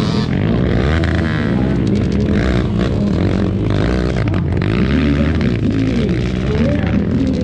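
Dirt bike engines revving up and down over and over, their pitch rising and falling every half second or so as the engines overlap.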